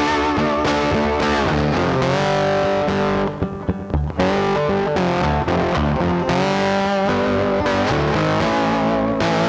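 Background rock music: distorted electric guitar over bass and drums with a steady beat, dropping out briefly about three seconds in.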